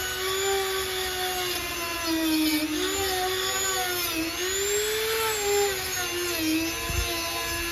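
Dremel rotary tool spinning a small bit against the aluminium inside of a Subaru TGV housing, grinding down sharp edges. Its high whine wavers and dips in pitch again and again as the bit bears on the metal.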